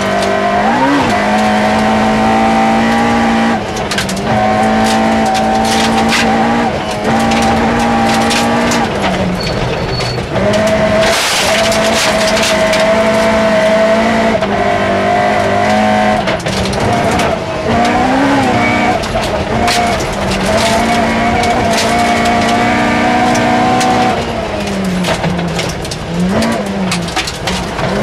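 Toyota Starlet rally car's engine running hard at high revs, heard from inside the cabin, the revs dropping briefly at each gearshift several times and falling and climbing again near the end. Gravel and stones clatter against the underside throughout.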